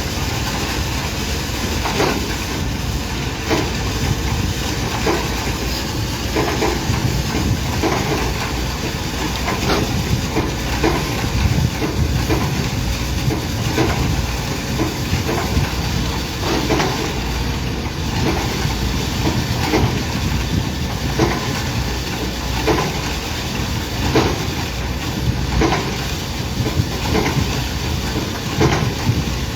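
Heavy construction machinery running steadily with a low rumble and hiss, and a regular knock a little more than once a second.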